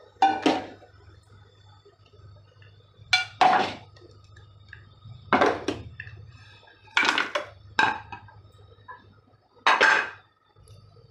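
Small steel saucepan being handled on a steel stovetop while lumps of jaggery go into it, heard as sharp metal clanks and clinks in pairs and short clusters every two seconds or so, over a faint low hum.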